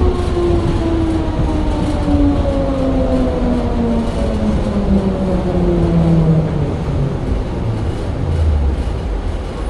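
Munich P 3.16 tram heard from inside the passenger car while running: wheels rumbling on the rails, with a whine from the drive that falls steadily in pitch as the tram slows down.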